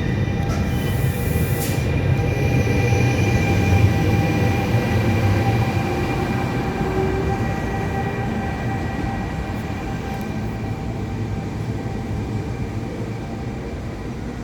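Regional train pulling away, its running rumble overlaid by steady high-pitched whistling and screeching tones. A short hiss comes about a second in; the sound is loudest about four seconds in and then slowly fades as the train leaves.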